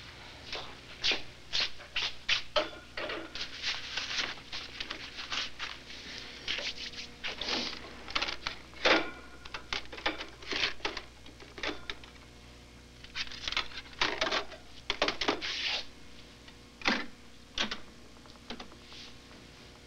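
Irregular clicks, rustles and light clattering of small objects being handled by hand, with short pauses between bursts.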